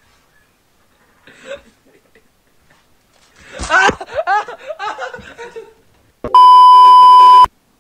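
A voice shouting in a string of rising and falling cries for about two seconds, then a loud, steady censor bleep lasting about a second near the end.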